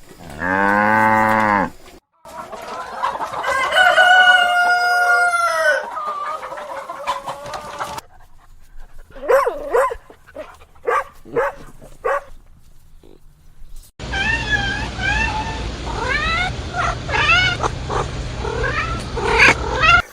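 A series of separate farm-animal call clips, chiefly chickens: a rooster crowing, hens clucking, and a busy stretch of quick chicken calls over background noise near the end.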